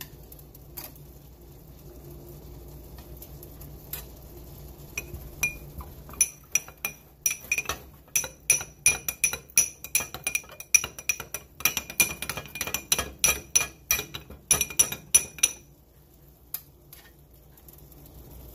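Metal spoon stirring briskly in a small glass bowl of sauce: a fast run of clinks with a glassy ring, starting about six seconds in and lasting roughly ten seconds. Before it come a few scattered clicks of metal tongs against a cast-iron skillet.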